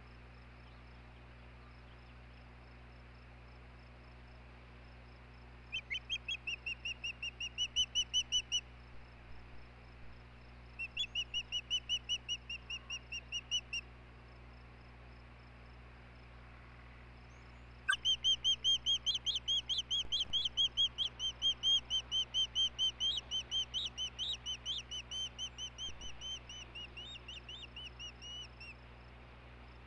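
Osprey calling: three bouts of rapid, high whistled chirps at about four a second, a short bout about six seconds in, another about eleven seconds in, and a longer one of some ten seconds starting about eighteen seconds in.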